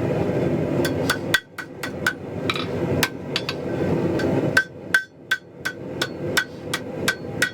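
Hand hammer striking hot mild steel on an anvil, forging a hook into the end of a bar. Sharp ringing blows begin about a second in and come about three a second, over a steady rushing noise.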